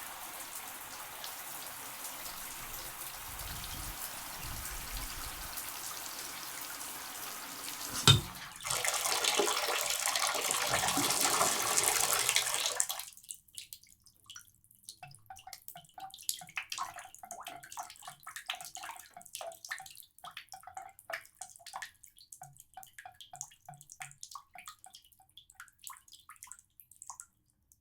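Shower spray running steadily, with a single sharp knock about eight seconds in, then heavier spray that cuts off suddenly as the water is shut off, leaving scattered drips.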